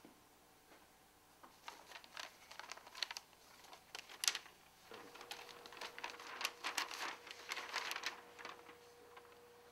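Faint rustling and crinkling of paper sheets being handled, in short irregular rustles. A faint steady hum comes in about halfway.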